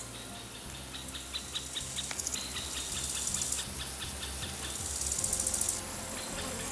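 Bush-crickets stridulating: high buzzing trills that stop and start, with a fast series of short ticks, about five a second, through the first half. A low steady hum runs underneath.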